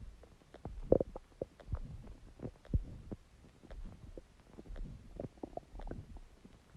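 Stomach growling and gurgling: an irregular run of short low gurgles and pops, some with a brief pitched squeak, the loudest about a second in.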